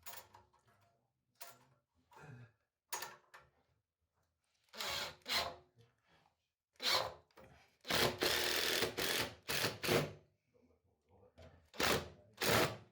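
A series of knocks and clatters of hard objects, spaced irregularly, with a dense run of clattering about eight seconds in.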